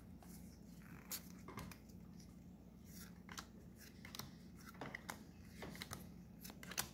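Faint flicks and rustles of Pokémon trading cards being slid through the hands and laid down, a soft click every second or so, over a low steady hum.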